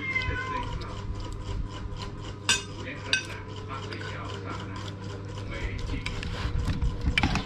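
Metal spoons clinking and scraping against plates and a steel bowl as children eat rice, a run of small clicks with two sharper clinks about two and a half and three seconds in. A steady hum runs underneath.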